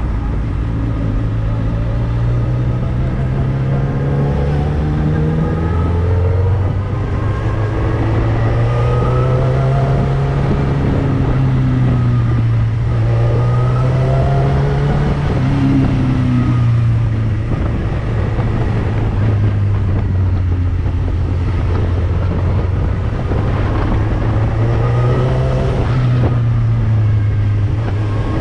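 Motorcycle engine under way, pulling through the gears: its pitch climbs several times and drops back at each shift, over a steady rush of road noise.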